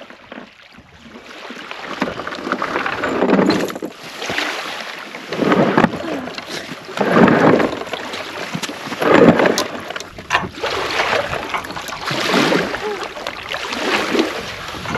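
Hobie Lynx kayak being shoved over a wooden boat ramp into the water, its hull scraping in a series of pushes about every two seconds. New tape on the bottom of the hull keeps it from sliding easily on the ramp.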